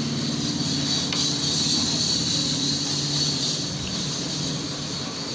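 Steady machine hum with a high hiss over it, unchanging throughout, and a small click about a second in.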